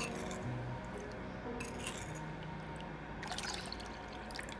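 Lime juice poured in a thin stream into a small ceramic bowl of fish sauce, splashing in short spells, over soft background music.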